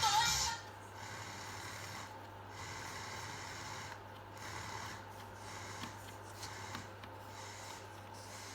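Music from the repaired Porsche CR-220 car radio cuts off about half a second in, leaving a faint steady low hum and a light hiss, with a few faint rustles.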